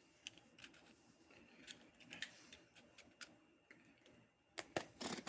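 Faint, scattered clicks and short scrapes of a craft knife working through packing tape on a cardboard box, with a cluster of louder scrapes near the end.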